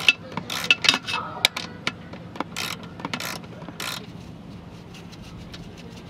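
Socket ratchet clicking in quick irregular runs as it turns out the small 3/8-inch bolts holding a porcelain RV toilet bowl to its base; the clicking dies down about four seconds in.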